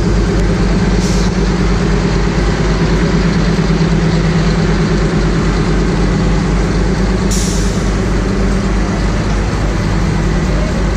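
Narrow-gauge diesel locomotive engine running steadily as it hauls the train slowly past. Two short hisses cut in, a brief one about a second in and a stronger one about seven seconds in.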